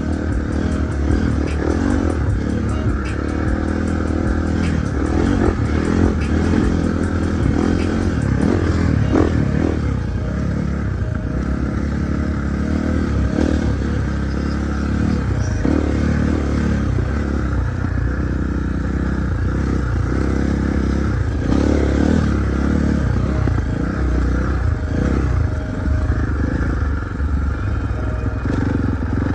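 Husqvarna 450 dirt bike's single-cylinder four-stroke engine running steadily as the bike is ridden.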